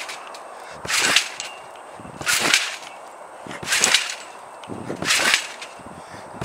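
Trampoline mat and springs taking a jumper's landings in a steady bounce rhythm: four bounces, about one every second and a half.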